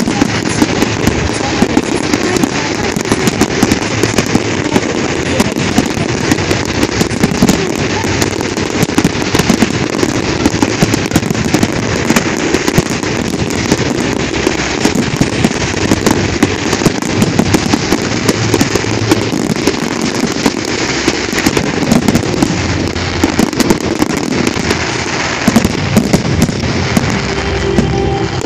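Fireworks display: a continuous barrage of shell bursts, bangs and crackle, many reports a second with no break.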